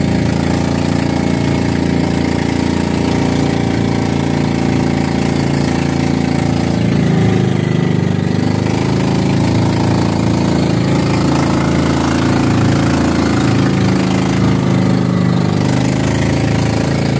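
Outrigger boat's engine running steadily at speed. Its pitch dips briefly about seven seconds in, then picks back up.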